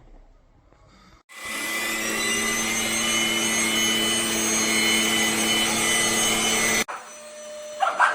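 Cordless stick vacuum cleaner switching on about a second and a half in and running steadily with a whining motor over a rush of air, then cutting off abruptly near the end.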